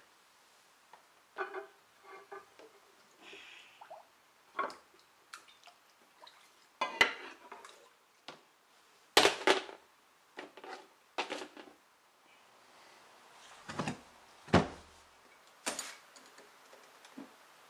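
Small metal parts clinking against each other and against a plastic tub, with splashes and drips, as they are dropped into and moved about in a tub of dark soaking liquid. The knocks come one at a time with gaps between them, and there are two dull thumps about three-quarters of the way through.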